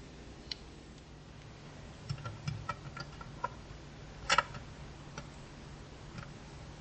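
Light clicks and taps of small hard parts being handled and fitted together, scattered over a couple of seconds, with a sharper double click about four seconds in, over a low steady hum.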